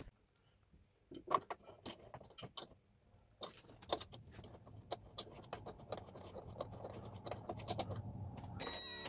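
Light metallic clinks and scrapes of a long steel bolt being fed up through a towbar mounting bracket and chassis hole, with small scattered ticks of metal on metal.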